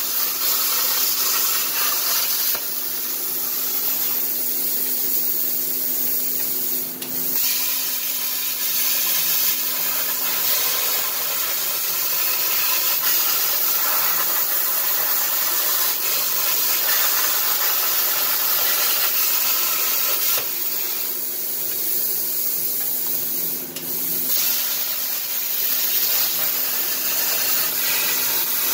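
Everlast Power Plasma 60 plasma cutter with a machine torch cutting sheet metal on a CNC table: a steady, loud hiss of the arc and air, with a steady hum underneath. The hiss drops out for a moment twice, about 7 seconds and 24 seconds in.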